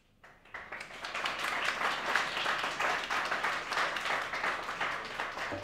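Audience applauding: many hands clapping together. It comes in just after the start and eases off near the end.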